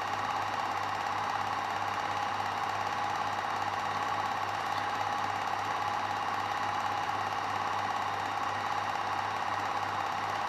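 Film projector running: a steady mechanical whirr and rattle over a constant low hum.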